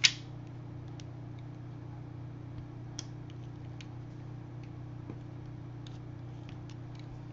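Small taps and clicks of a pen-style rhinestone picker lifting adhesive rhinestones off their sheet and pressing them onto a paper card: one sharp click right at the start, then a handful of faint ticks spread through, over a steady low hum.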